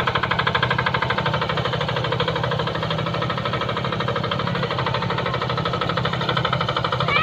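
Two-wheel walking tractor's single-cylinder diesel engine running steadily with a rapid, even beat as it pulls a loaded trailer.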